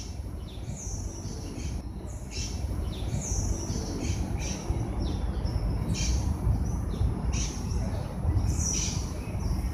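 Birds chirping: short, high chirps repeated about once or twice a second, over a steady low rumble.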